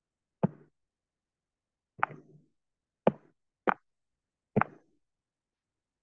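Five separate sharp knocks at uneven spacing, each with a short dull tail: keys struck on a laptop keyboard while an answer is typed in.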